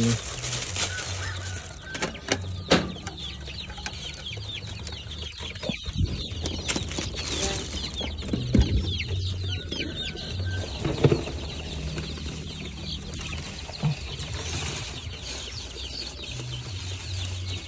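KUB kampung chickens clucking and calling, with many short high calls throughout. A few sharp knocks break in along the way.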